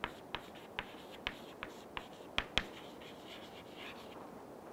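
Chalk tapping and scratching on a chalkboard as letters are written: a run of sharp taps, about three a second, the two loudest a little over two seconds in, then a softer scratching of chalk near the end.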